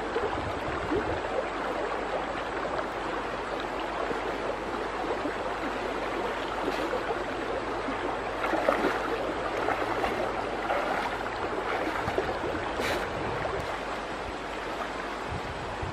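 Shallow river water flowing steadily, with a brief louder splash a little past halfway as someone wades through it.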